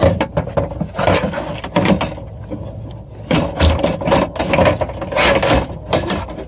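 Chevy Colorado rear window regulator rattling, clunking and scraping against the door's metal as it is twisted and worked out of the door, in irregular knocks with a quieter stretch about two seconds in.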